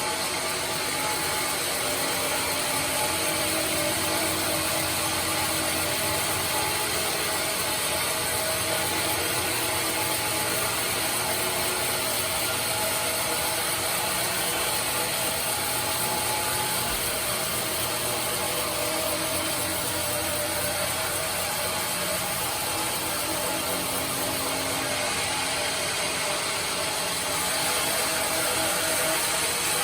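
Sawmill band saw machine running steadily: a dense, even mechanical noise with a few steady tones, unchanging throughout.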